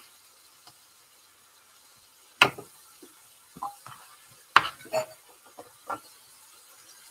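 Kitchen knife cutting button mushrooms on a wooden chopping board: a handful of short, sharp knocks of the blade and mushrooms on the board at uneven intervals, the loudest about two and a half and four and a half seconds in.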